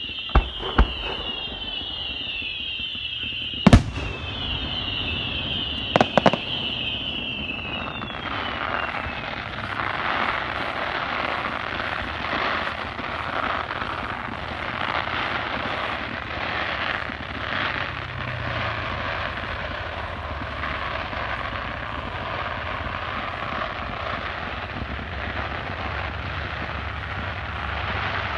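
Fireworks going off: five sharp bangs in the first six or seven seconds, the loudest about four and six seconds in, then only a steady background hiss.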